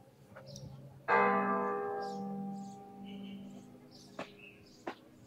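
Church bell tolling: one stroke about a second in, ringing out and slowly fading over the lingering hum of the stroke before.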